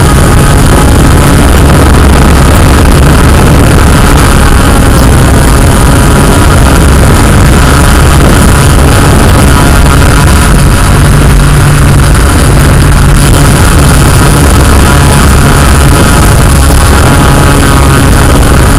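Yuneec Q500+ quadcopter's electric motors and propellers whirring steadily and very loudly as it hovers and descends to land, with a cluster of steady whining tones over a low hum.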